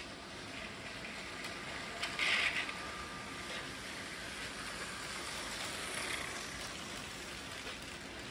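A motorised Lego train rolling past on plastic Lego track: a steady mechanical rattle of plastic wheels and motor whirr, with a louder clatter about two seconds in and again near six seconds.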